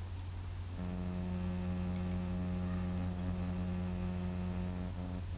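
Steady electrical mains hum, joined about a second in by a pitched buzzing drone that stops just before the end.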